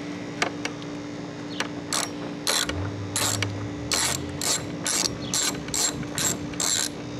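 Socket ratchet clicking as it backs a nut off a compressor mounting stud. The clicks start about two seconds in and quicken to about three a second.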